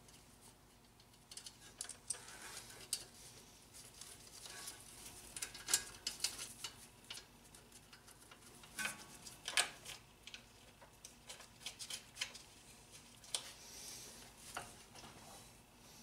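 Brake hose and ABS sensor line being pressed back into their brackets on a car's front strut by gloved hands: faint, irregular clicks and light rubbing, with a few sharper clicks a little past the middle.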